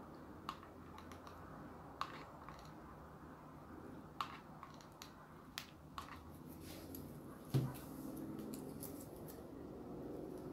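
Faint handling sounds of hot-gluing dry corn-husk strips onto a cloth head: scattered light clicks and rustles, with one louder knock about seven and a half seconds in.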